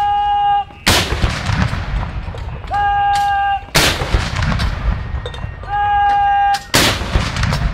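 Salute guns (M5 3-inch anti-tank guns firing black-powder blank cartridges) fire three single rounds about three seconds apart, each shot ringing out with a long echo. Just before each shot a steady tone sounds for just under a second.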